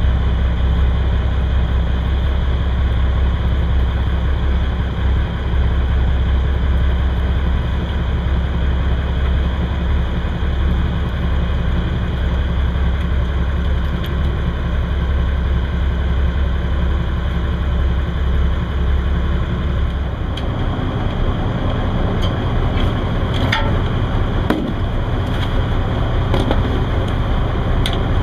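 Prawn beam trawler's engine running steadily with a deep low drone. About twenty seconds in the drone turns rougher and lighter, and a couple of sharp knocks follow.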